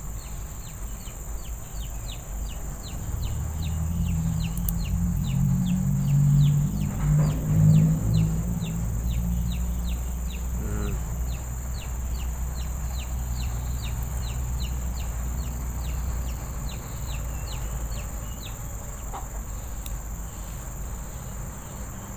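Chickens clucking, loudest about four to eight seconds in, over a steady high insect drone and a short high chirp that repeats about two or three times a second.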